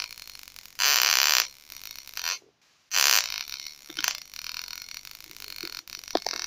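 High-voltage electric discharge sparking at the wire tips of a homemade ozonator, a hissing crackle that comes in loud bursts about a second in and again near three seconds, with fainter crackling in between.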